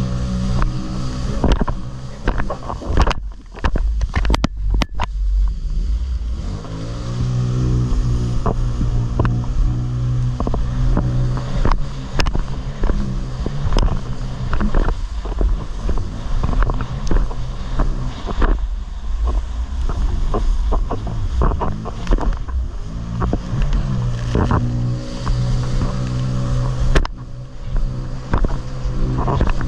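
Jet ski engine running at speed while the hull slaps and splashes over the waves. The engine eases off about three seconds in and revs back up a few seconds later, and it dips and picks up again near the end.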